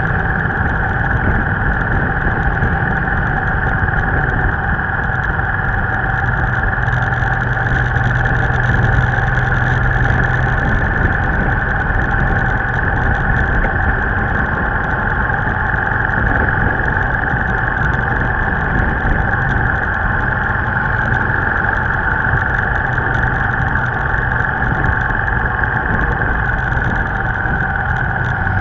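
Steady engine, wind and road noise of a motorcycle riding at a constant speed, with trucks passing close alongside.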